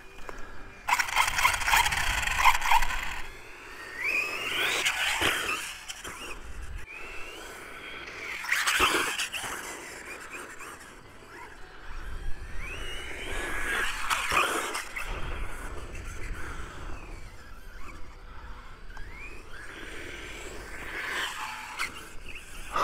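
Brushless electric motor of an XLF F11A 1/10-scale off-road RC car whining up and down in pitch in several bursts of throttle, with scraping from its tyres and body pushing through very tall grass.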